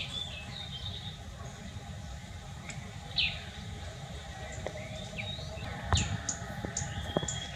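A few brief high-pitched chirps and squeaks, spaced a couple of seconds apart, with a falling squeak about three seconds in and a cluster of short chirps and clicks near the end, over a steady low rumble.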